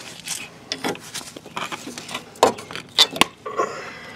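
Hand tools clinking and scraping against the metal brake line retaining clip on a car's front strut, in a few scraping strokes and then several sharp metallic clicks about two and a half to three and a half seconds in.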